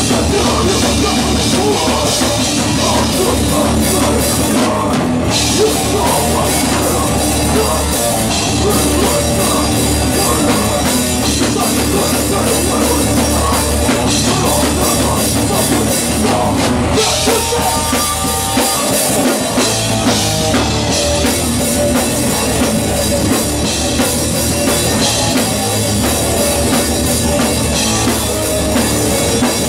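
Live rock band playing loud and without a break, with drum kit, electric guitar and bass guitar. The bass end drops out for about a second a little past the middle.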